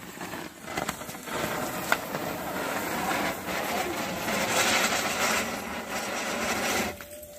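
Diwali firework hissing as it burns and sprays sparks, with a few sharp crackles. It grows louder, then stops suddenly near the end.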